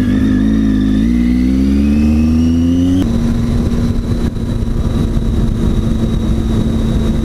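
Triumph Tiger 800 XC's three-cylinder engine pulling away under acceleration, its pitch rising for about three seconds, then dropping at an upshift and holding steady.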